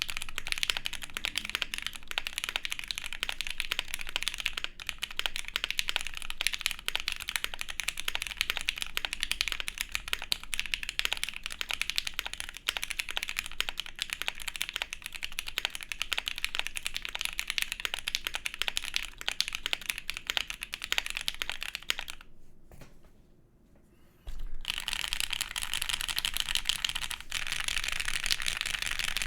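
Continuous fast typing on a gasket-mounted Vega custom mechanical keyboard with a POM plate, Gateron Black Ink v2 linear switches and GMK Striker R2 keycaps. The keystrokes are dense, with a pause of about two seconds a little over twenty seconds in, then the typing picks up again.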